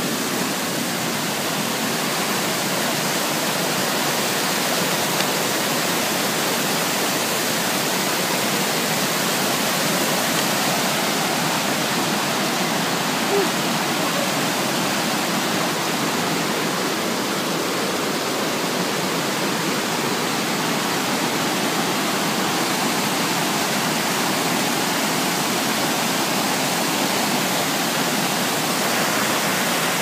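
A steep mountain cascade: white water rushing over rocks and logs close by, a steady, loud, unbroken rush of water.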